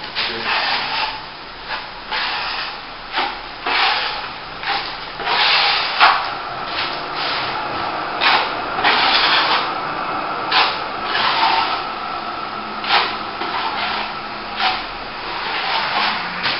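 Plastering trowel scraping over a wetted top coat of plaster in many short, irregular strokes, about one or two a second: the polishing stage of the finish coat.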